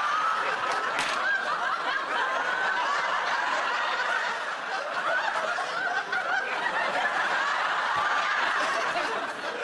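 Studio audience laughing: a long, unbroken wave of laughter from many people.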